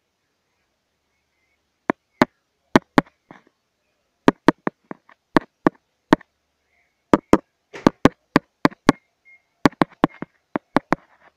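A series of sharp, irregular taps, about two dozen, starting about two seconds in, some coming in quick pairs, with silence between them.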